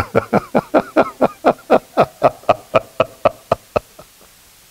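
A man laughing into a close headset microphone: a long run of rhythmic 'ha-ha' pulses, about four a second, trailing off and stopping about four seconds in.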